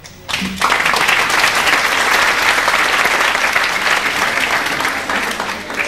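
Audience applauding, starting just after the greeting ends and thinning slightly near the end.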